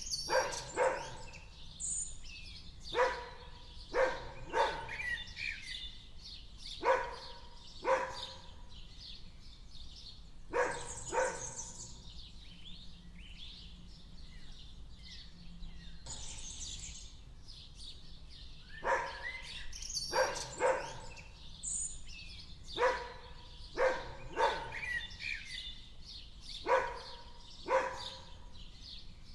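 A dog barking in short single and double barks every second or two, pausing for several seconds in the middle before starting again. Birds chirp throughout.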